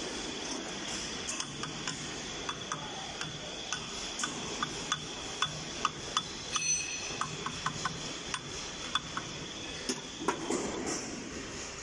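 Sharp metallic clicks and clinks, about one or two a second, from hand tools and steel parts being handled on a rebar thread rolling machine's head while its cover is fitted. There is a brief metallic ring about six seconds in and a rattle of wrenches near the end, over a steady faint high hum.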